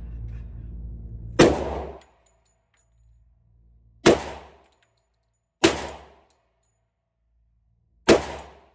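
Four .45 ACP pistol shots from a Glock 21 in a micro conversion kit chassis, fired slowly, with a few seconds between shots. Each is a sharp, loud crack with a short ringing tail.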